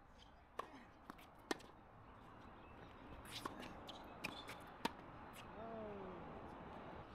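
Tennis rally on a hard court: about nine sharp pocks of ball striking strings and bouncing, spaced irregularly, the loudest about five seconds in. A short falling tone sounds about six seconds in.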